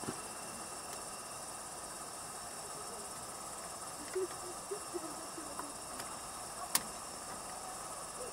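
Soft handling sounds of fingers tying a mesh lantern mantle's wire tie onto the burner, with one sharp click about seven seconds in, over a faint steady high hiss.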